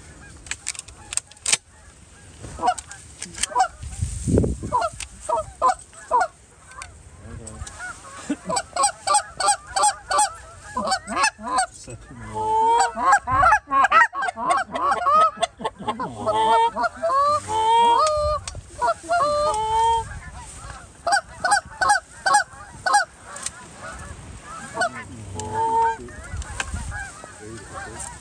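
A flock of Canada geese honking, many birds calling over one another in quick overlapping honks. The calling swells to its loudest about twelve seconds in and thins out after about twenty seconds.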